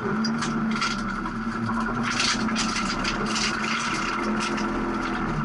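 Holden VR Commodore rally car's engine running steadily at low, even revs, heard from inside the cabin, with scattered crunching and rattling, mostly in the middle.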